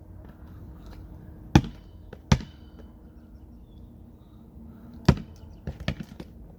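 A basketball bouncing on hard ground as it is passed: three sharp bounces, two close together and one a few seconds later, followed by a few lighter knocks near the end.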